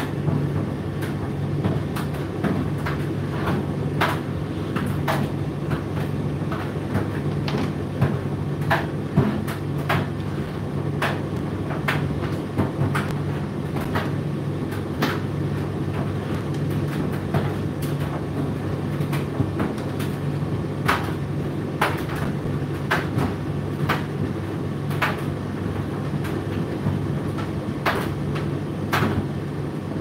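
Indesit IDC8T3 8 kg condenser tumble dryer running: a steady hum of the motor and turning drum, with irregular sharp clicks and knocks from the load tumbling in the drum.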